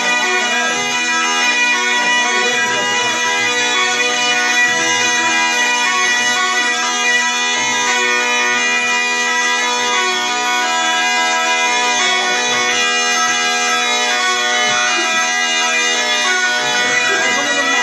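Zampogna (Italian bagpipe) playing a tune over a steady, unbroken drone.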